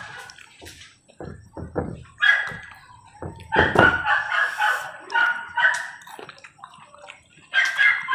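Domestic fowl calling in drawn-out pitched bursts, a short one about two seconds in, a longer run from about three and a half to six seconds, and another starting near the end, with a few soft low knocks in between.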